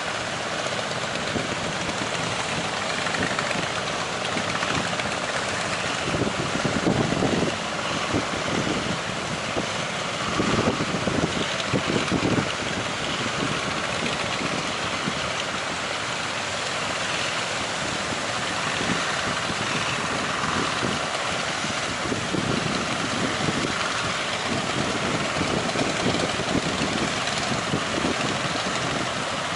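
Steady rush of strong wind and waves with an engine running underneath; gusts of wind buffet the microphone about six seconds in and again around ten to twelve seconds in.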